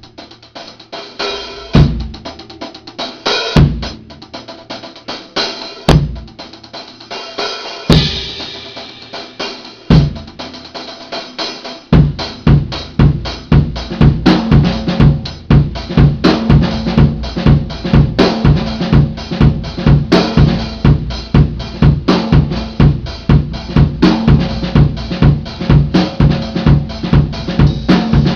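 Drum kit played solo. For about the first twelve seconds there are single heavy accents with bass drum and cymbal about every two seconds, then a fast, continuous groove of bass drum, snare and cymbals.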